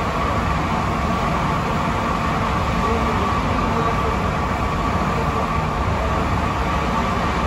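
Inside a rubber-tyred Alstom NS-16 metro car running between stations: a steady rumble from the running gear with a faint steady whine on top.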